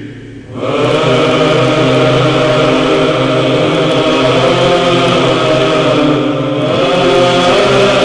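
Byzantine chant: voices singing a slow melody over a steady held low drone, the ison. The singing drops away briefly about half a second in, then a new phrase begins.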